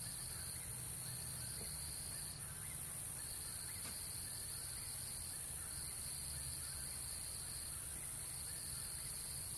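Night chorus of calling animals: a steady high drone and a trill that comes in stretches of a second or two with short gaps, with faint distant birds calling now and then.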